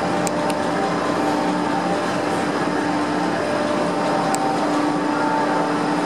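Steady mechanical hum and rumble as the Tamar-class lifeboat is winched up the slipway on its cable into the boathouse, with a few faint clicks.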